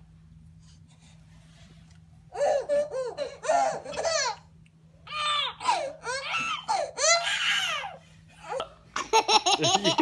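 Babies laughing in repeated high-pitched bursts, starting about two seconds in. Near the end, a man and a small child laugh in quick bursts.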